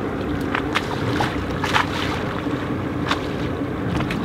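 Sea water sloshing and slapping against the hull of a sailing yacht, with short irregular splashes over a steady wash and wind buffeting the microphone.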